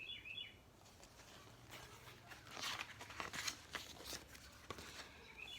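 Faint rustling and crinkling of paper book pages being handled and turned. A small bird chirps a quick run of repeated notes at the start and again near the end.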